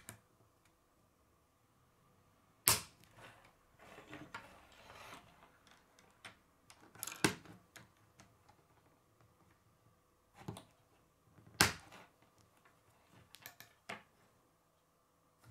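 K'nex plastic rods and connectors being snapped together by hand: three sharp clicks spaced a few seconds apart, with fainter clicks and the rustle of plastic pieces being handled in between.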